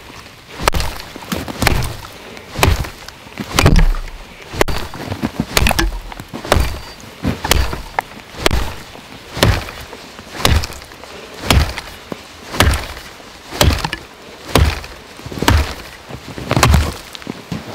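Axe chopping into a felled conifer trunk: a sharp wooden thwack about once a second, in a steady rhythm of some eighteen strokes, as the cut deepens through the log.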